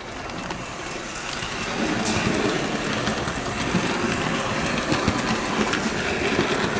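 Bachmann OO gauge S&D 7F model steam locomotive running along the track, its motor and wheels making a steady rumble with many light ticks. It grows louder over the first two seconds and then holds steady, running smoothly without grinding.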